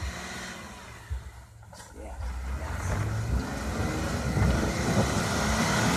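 Two-door Jeep Wrangler's engine working under load as it climbs a snowy, rutted trail obstacle, revving up and growing louder from about two seconds in.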